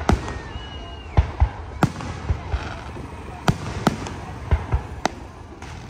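Aerial fireworks shells bursting overhead, about a dozen sharp bangs at an uneven pace, some in quick pairs, over a low continuous rumble. A brief whistling tone falls in pitch about half a second to a second in.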